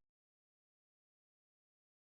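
Digital silence: the sound track is cut to nothing.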